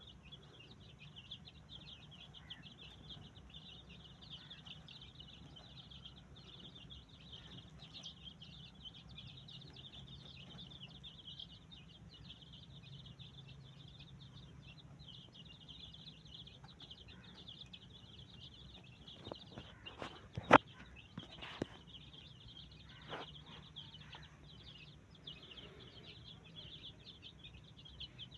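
Continuous dense chorus of high-pitched bird chirping, with a faint low hum underneath. A sharp click about twenty seconds in is the loudest sound, with a few smaller knocks around it.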